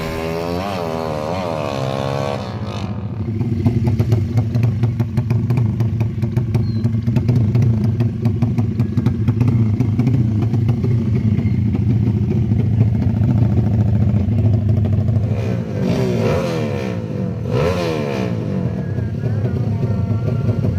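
Drag-racing motorcycle engines revving. The pitch rises and falls in quick throttle blips for the first couple of seconds. Then an engine runs loud and steady with a rapid pulse, and more revs rise and fall near the end.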